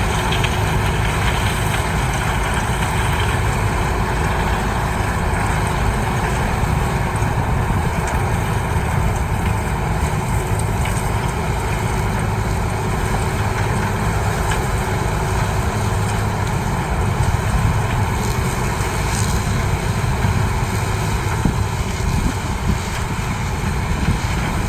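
CLAAS Mega 204 combine harvester running steadily while harvesting corn: a continuous heavy engine drone with the noise of its machinery. A faint steady hum under it fades out about two-thirds of the way through.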